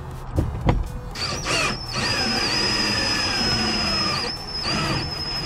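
Cordless drill motor whining steadily as it turns a wire-winder, pulling cutting cord through the urethane bead to cut out a Jeep Wrangler quarter glass. Its lower tone slowly sinks in pitch as the cord drags, and a few sharp clicks come in the first second.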